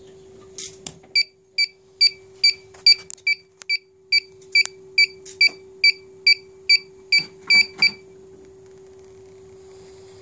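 Piezo buzzer on an Alexmos 32-bit gimbal controller board sounding about seventeen short, high beeps at an even pace of two to three a second for about seven seconds. A steady low hum runs underneath, with a few handling clicks near the start and end of the beeping.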